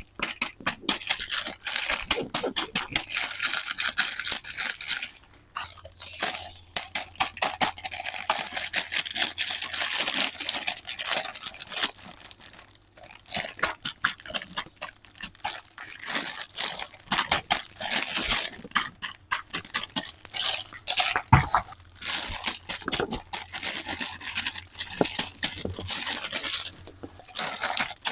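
Toy set packaging torn and crinkled by hand during unboxing: a dense crackling with many sharp clicks, stopping briefly a few times.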